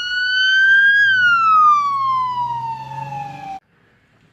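Police car siren wailing: the pitch climbs until about a second in, then falls slowly and cuts off suddenly about three and a half seconds in. A low hum runs beneath the siren in its later part.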